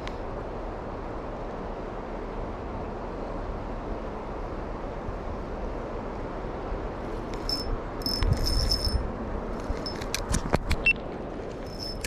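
River water running steadily, with clicking and metallic rattling in the second half as the spinning rod and reel are handled close to the microphone.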